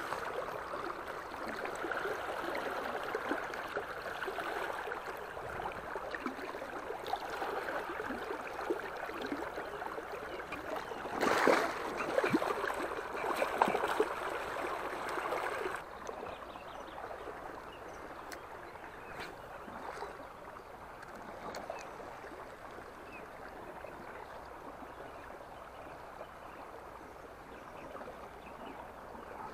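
Shallow river water rushing and gurgling close by, with a brief louder burst about eleven seconds in; a little past halfway it drops suddenly to a quieter, steady flow.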